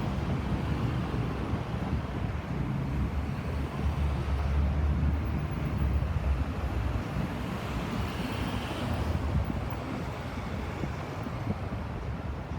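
Wind buffeting the microphone over the steady noise of road traffic, the traffic noise swelling briefly about eight seconds in; no siren is heard.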